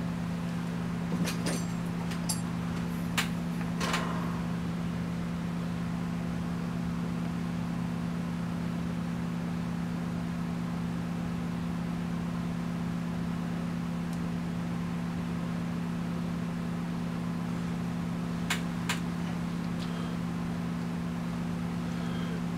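Steady low mechanical hum, like a shop fan or similar machine, with a few sharp metallic clicks and clinks of tools or small engine parts being handled: a cluster in the first few seconds and two more later on.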